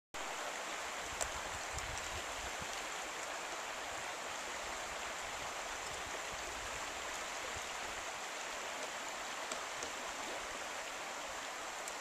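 Creek water running steadily, with a few faint sharp clicks; the loudest comes about a second in.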